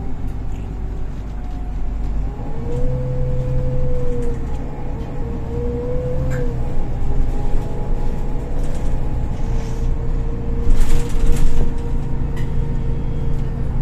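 Golden Dragon XML6125CC city bus under way, heard from inside the cabin: steady low engine drone with a whine from the drivetrain that rises and falls a little. About eleven seconds in there is a short burst of hiss.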